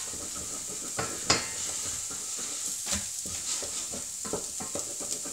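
Wooden spoon stirring thickening polenta in a stainless steel saucepan, scraping and knocking irregularly against the pan, the sharpest knock about a second in. A steady high hiss runs underneath.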